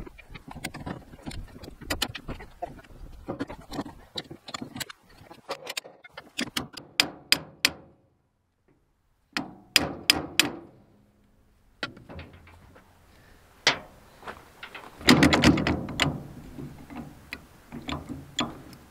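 Irregular metal clicking and knocking as the universal joint on a brush hog's PTO driveshaft is worked back and forth by hand to free the yoke. It goes quiet briefly around the middle, and the knocking is loudest and densest near the end.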